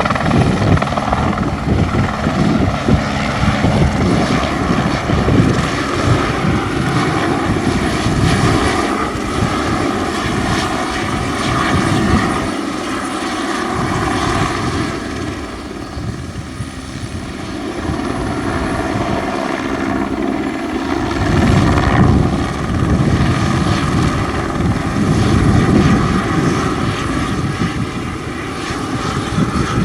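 Eurocopter AS350B single-turbine helicopter in flight: rotor chop over a steady high turbine whine. The sound fades somewhat around the middle and grows louder again later as it passes.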